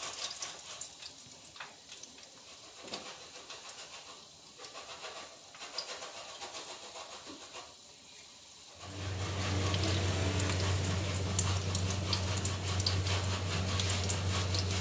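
Batter-coated green chillies sizzling in hot oil in a wok, a soft crackle of fine pops. About nine seconds in the frying turns louder and denser, joined by a steady low hum.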